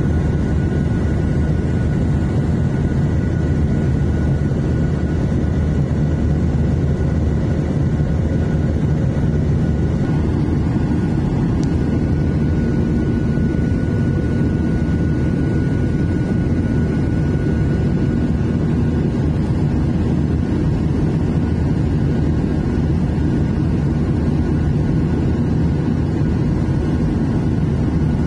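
Boeing 737-800 in flight, heard inside the cabin by the wing: a steady, loud rumble of its CFM56-7B turbofan engines and airflow, with a faint high steady whine above it.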